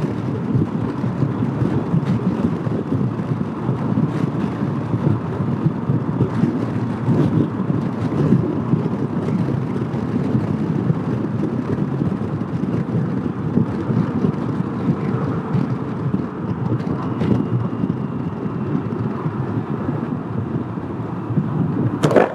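Steady wind and road rush from a 2015 Honda PCX150 scooter at highway speed, heard through a handlebar-mounted camera's microphone. There is one short, sharp noise near the end.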